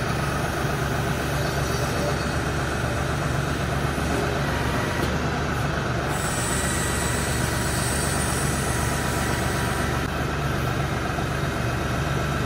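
Tractor diesel engine idling steadily.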